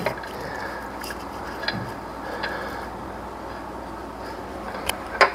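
A few light clicks and taps of metal during hand work fitting a serpentine belt onto engine pulleys, with two sharper clicks near the end, over a steady background hiss.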